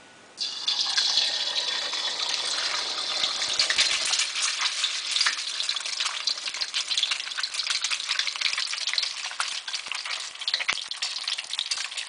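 An egg dropped into about an inch of hot vegetable oil in a wok sets off a sudden loud sizzle about half a second in. The oil then keeps bubbling and crackling hard around the egg as it nearly deep-fries. Bubbling at once like this shows the oil is hot enough for crispy, bubbly edges.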